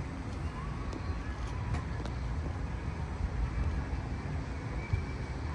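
Steady low rumble of distant city traffic, with a few faint short high chirps and ticks over it.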